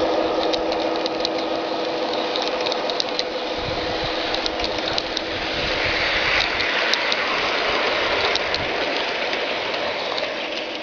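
Aristocraft G-scale Class 66 model diesel locomotive running with a ballast train: a steady electric motor and gear whine, with scattered clicks of wheels over the rail joints.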